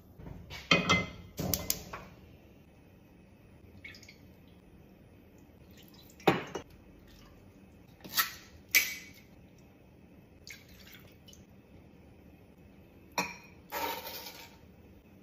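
Scattered kitchen clinks and clatters, about eight short separate knocks of dishes, bottles and utensils, with liquid poured and dripping into a pan.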